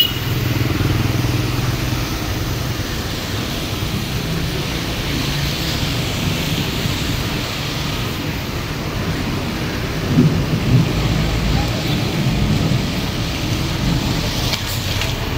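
City street ambience: a steady low rumble of passing traffic and motorbikes, with a couple of louder low thumps about ten seconds in.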